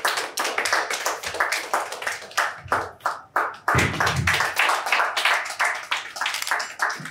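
Audience clapping, a dense run of hand claps.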